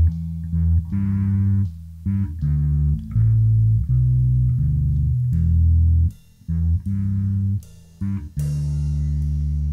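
Electric bass guitar playing alone to open a song: a riff of low, held notes that change pitch every half second or so, with short breaks between phrases.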